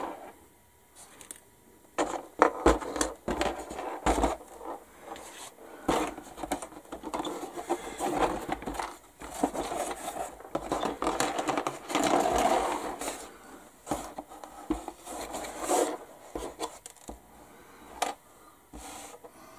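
Plastic model-kit parts and sprues clicking, knocking and scraping as a hand rummages through a box of parts, with a stretch of rustling midway.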